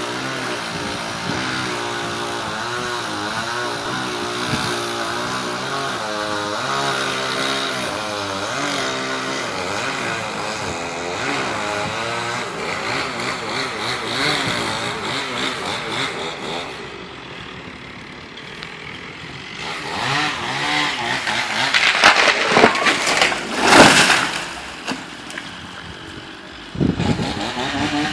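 Stihl chainsaw running and cutting, its pitch rising and falling under load. About two-thirds of the way through comes a loud spell of cracking and crashing: the ash tree going over. Near the end the saw revs up again.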